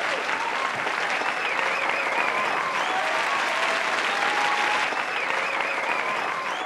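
Crowd applause, with high voices calling out over the clapping.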